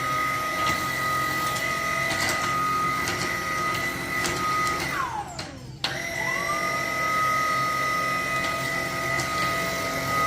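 Vacuum cleaner motor running with a steady high whine. About 5 s in it is switched off and spins down with a falling pitch, then about a second later it is switched on again and whines back up to full speed.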